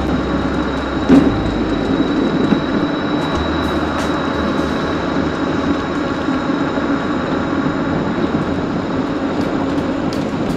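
Electric mobility scooter running along a paved road: a steady rumble of tyres and body rattle with a thin, steady high whine and scattered small clicks. One louder knock about a second in.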